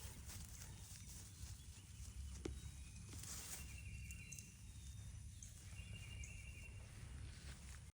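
Faint farm ambience of sheep grazing, with small scattered clicks of tearing and chewing, over a steady low rumble. A bird calls twice, each a short, high, held note, a little after three seconds in and again near six seconds.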